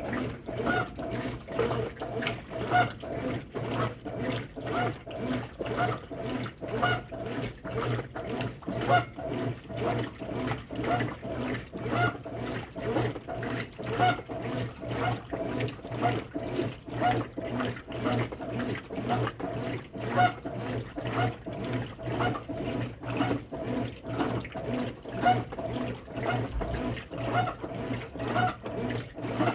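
Consul Facilite 10 kg top-loading washing machine agitating a load: water sloshing in a steady, repeating rhythm over the low hum of its motor.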